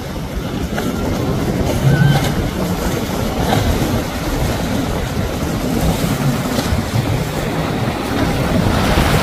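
Outboard motors of a center-console boat running hard through choppy inlet water, a steady dense rumble mixed with the rush of wind and spray.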